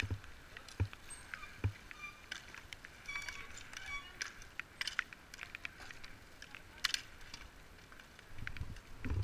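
Bike polo play on asphalt: scattered sharp clacks and knocks of mallets against the ball and court, with the bicycles rattling as they ride.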